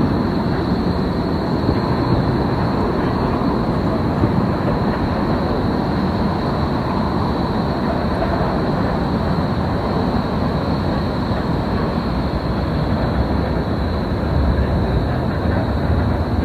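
City-square ambience: a steady wash of traffic and rail noise with a faint steady high whine. A low rumble grows louder near the end.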